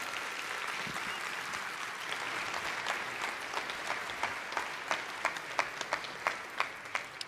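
Audience applauding. The dense applause thins over the last few seconds into scattered single claps.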